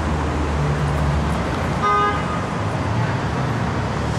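Street traffic below, with a vehicle engine rumbling steadily and one short car-horn toot about two seconds in.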